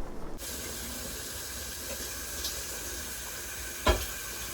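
Kitchen tap running steadily, starting abruptly about half a second in, with one sharp knock near the end.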